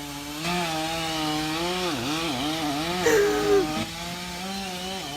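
Chainsaw running at high revs. Its pitch sags and wavers about two seconds in as the chain bites into the wood, then holds steady again.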